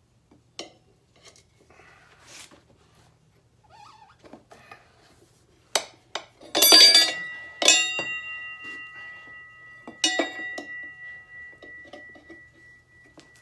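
Metal tire irons clanking and scraping against a motorcycle wheel rim while levering a tire bead on. A loud cluster of clanks a little past halfway sets off a clear metallic ring that hangs on for several seconds, with a few more knocks later.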